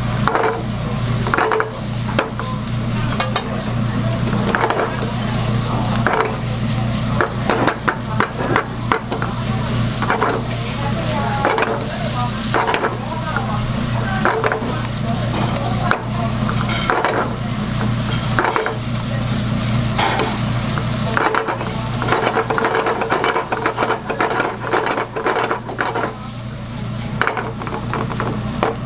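Food sizzling in a hot pan, with frequent clicks and scrapes of a utensil stirring against the pan, over a steady low hum.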